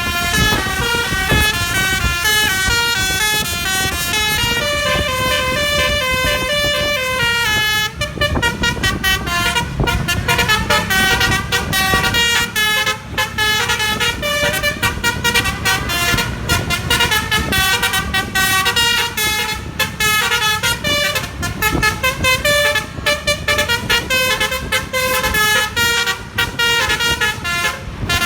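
Bus telolet (basuri) horn on the roof of a Ciptaning Trans bus, its trumpets playing a tune of stepped notes; from about eight seconds in the notes come in quicker, choppier bursts. A low rumble runs underneath.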